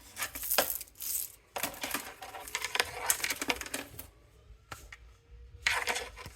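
Light metallic clicks, rattles and scraping from handling a hand-held wire stripping tool and 14 gauge copper wire, in irregular short bursts with a louder scrape near the end.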